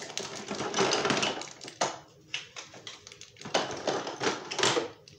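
Small toy train cars and pieces clattering and knocking together as they are rummaged out of a shelf bin by hand, in irregular bursts of clicks.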